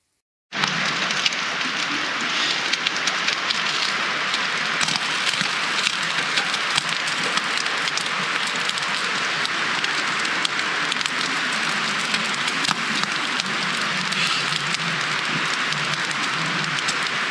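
Steady rain falling: a dense patter of many drops that starts abruptly about half a second in and holds steady.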